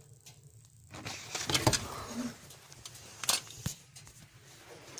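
Handling noises during work on the engine: rustling with a few sharp knocks, the first about a second and a half in and two more later.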